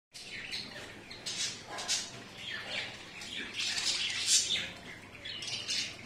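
Caged budgerigars and lovebirds chirping and chattering, many short calls overlapping, loudest about four seconds in.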